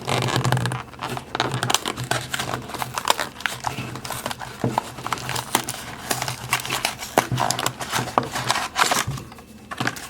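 A cardboard box of trading cards being opened by hand, with crinkling and tearing of its wrapping and packaging and irregular small clicks and rustles. The handling thins out shortly before the end.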